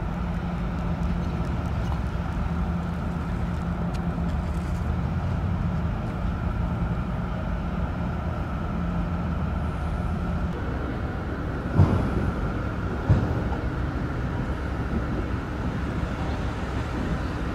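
Car ferry's engines running with a steady low hum as the vessel comes into its berth, the hum's tone fading out past the middle. Two short thumps sound just over a second apart shortly after.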